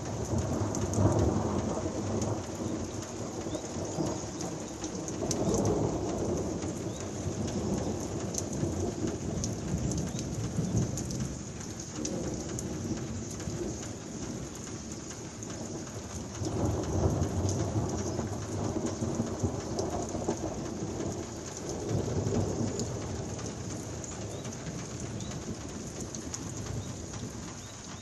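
Heavy downpour hissing steadily, with close drops ticking, while thunder rolls in long low rumbles: one in the first few seconds, another about five seconds in, and a longer, louder roll from about sixteen to twenty-three seconds.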